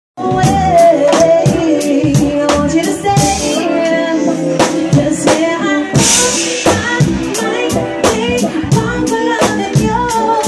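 Live R&B/soul band playing with a steady beat on drum kit and hand-played percussion, with keyboard and bass, cymbal crashes standing out about three and six seconds in.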